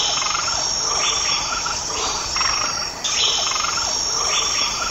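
A chorus of insects shrilling: a steady high tone with a rougher pulse that swells about once a second.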